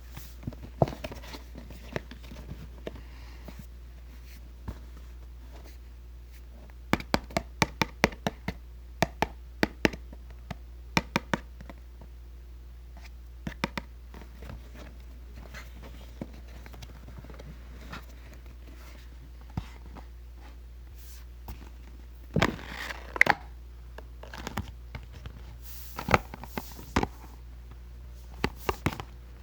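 Hands opening a toy's packaging: plastic and cardboard crinkling and tearing, with bursts of sharp clicks and crackles as the wrapping is handled, and a longer rustle of tearing about three-quarters of the way through. A steady low hum lies underneath.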